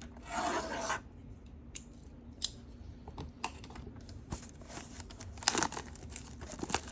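Plastic shrink-wrap being torn off a metal collector's card tin: a rip lasting about a second at the start, then scattered crinkling, scraping and small sharp clicks as the wrapping is worked off.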